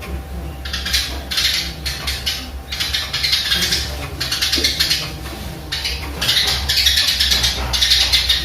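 Eurasian tree sparrow singing in fast, rattling bursts of high-pitched chatter with short gaps between phrases. It is a sparrow trained to sing canary-like song. A steady low hum runs underneath.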